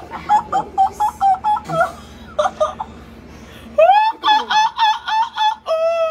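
A group of women laughing hard, in quick, high-pitched ha-ha-ha bursts. The laughter dies down briefly in the middle, then comes back louder and ends in a long, high held cry.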